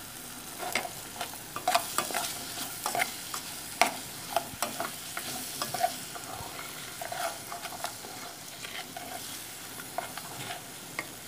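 Chopped onion, tomato, bell pepper and garlic sizzling in oil in a metal pot while a metal spoon stirs them. A steady frying hiss runs under scattered scrapes and clinks of the spoon against the pot, more of them in the first half.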